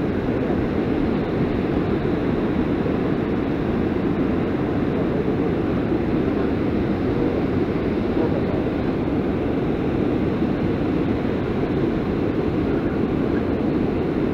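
Steady, even rushing noise with no distinct tones or separate events, strongest in the low-middle range.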